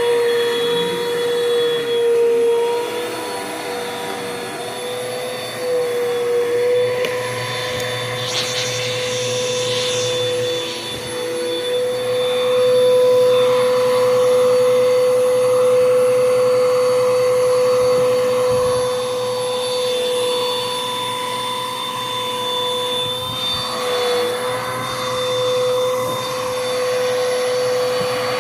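Bissell PowerForce Bagless 6583 upright vacuum cleaner running steadily with a motor whine, its pitch dipping slightly now and then. A short hissy rush comes about eight seconds in.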